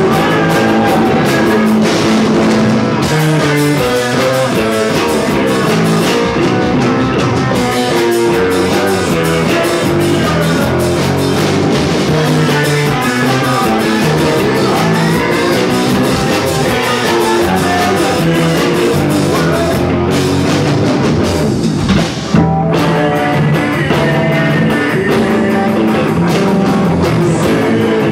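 Rock music on guitar and drum kit, with a brief break a little after three-quarters of the way through.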